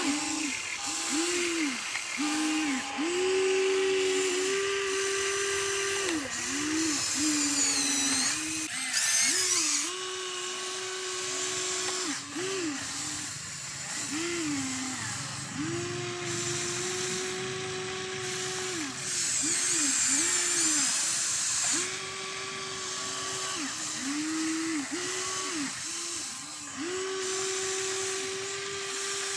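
Huina RC excavator's electric motors whining as the boom, arm, bucket and swing are worked, each movement a whine that rises in pitch, holds and falls away. Many short quick whines come between longer pulls of a second or two.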